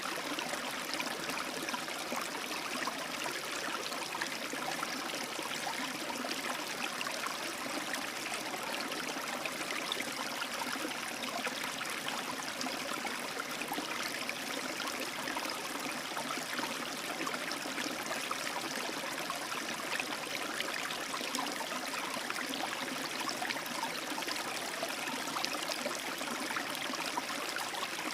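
Small stream rapids: water running steadily over rocks, a continuous rushing babble with fine gurgles.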